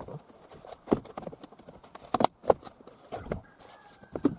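Hollow plastic knocks and taps as the interior trim panel of a Toyota Alphard power sliding door is pressed and patted into place by hand, a few separate knocks with the loudest pair a little past halfway.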